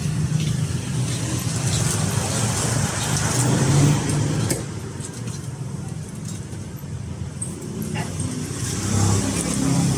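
Busy market background: a motor vehicle engine running steadily, with voices. Over it, a couple of sharp knocks of a cleaver striking a wooden chopping block as small fish are cut, one about halfway through and one near the end.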